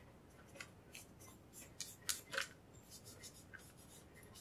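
A cleaning cloth rubbing and scraping over the metal frame of a Colt Defender 1911 pistol, with small metal clicks and knocks as the frame is handled and turned. The loudest cluster of clicks comes about two seconds in.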